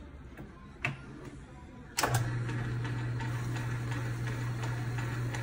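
A click about a second in, then a sharp clack about two seconds in as the belt-driven metal lathe's switch is thrown and its electric motor starts, running on with a steady low hum and the whir of the belt drive.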